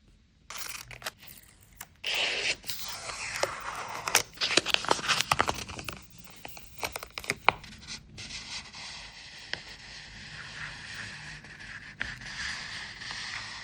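Packaging and washi tape rolls being handled and unwrapped by hand, with tearing and scraping and many sharp clicks. It starts about half a second in, is loudest through the middle, and settles into a quieter, steadier rustle near the end.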